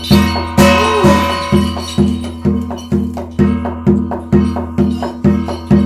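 Korean shamanic gut ritual music: a steady percussion beat of about two strikes a second with jingling metal, over sustained pitched tones.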